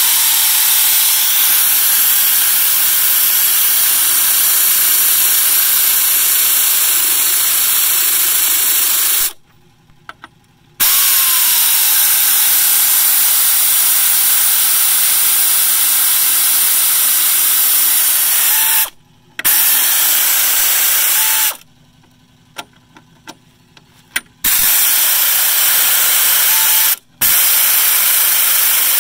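Power ratchet driving lag bolts into timber through a long socket extension: a loud, steady hissing whir that runs for several seconds at a time and stops sharply between spells, with a few small clicks in the longest pause.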